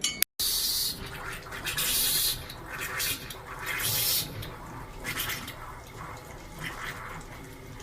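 Water running and splashing in irregular gushes, with a faint steady hum underneath.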